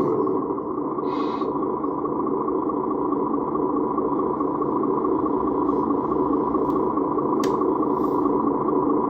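Simulated diesel engine sound from the sound module of a 1/14-scale Volvo A40G RC articulated dump truck, played through the model's small speaker and running steadily with a fast, even pulse. There is a short hiss about a second in.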